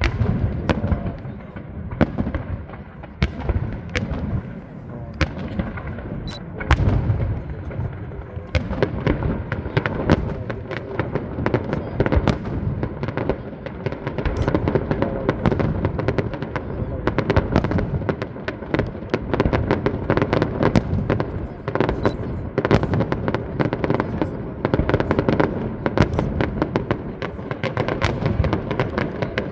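Aerial fireworks display going off: a rapid, unbroken string of bangs and crackles over a low rumble, growing denser about halfway through.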